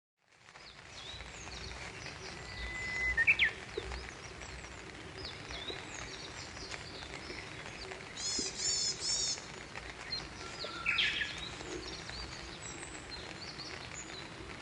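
Several wild birds singing and chirping, with high whistles and a rapid run of repeated notes, over a steady low rumble of outdoor background noise.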